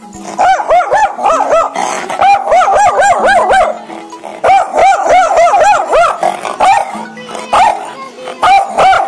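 Chained dog yelping in quick runs of about three or four high calls a second, each call rising and falling in pitch, with short breaks between the runs. The calls sound like 'aao aao'.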